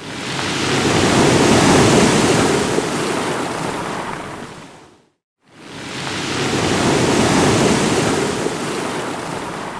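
Ocean wave crashing and washing in: a whooshing rush that swells up over about two seconds and fades away by about five seconds, then breaks off. After a short silence, a second wave of the same shape follows.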